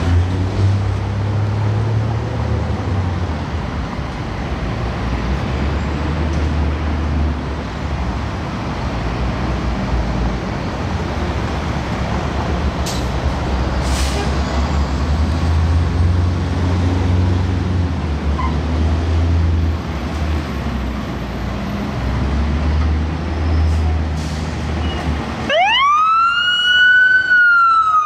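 Diesel engine of a 2017 Pierce Enforcer fire engine running with a low rumble that swells and eases, with two short sharp clicks about halfway through. Near the end the siren starts, rising steeply in pitch to a peak and then beginning to fall.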